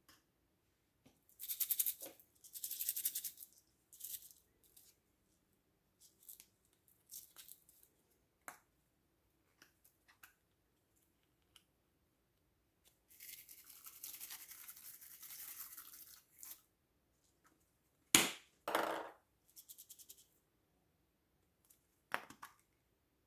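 Slime being squished and worked by hand: short bursts of wet crackling, with a sharper, louder squelch about two-thirds of the way in.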